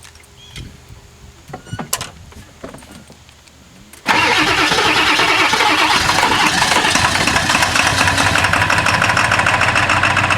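A 1997 Ford F-250's 7.3L Power Stroke turbo-diesel V8 being started about four seconds in: a loud engine sound kicks in suddenly and carries on steadily. This is a rough cold start, blamed on bad injectors. Before that come a few faint clicks and knocks.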